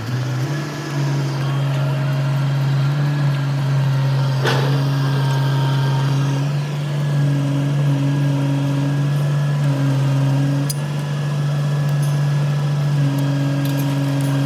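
An engine running steadily with a low, even hum. Its pitch rises briefly at the start and then holds.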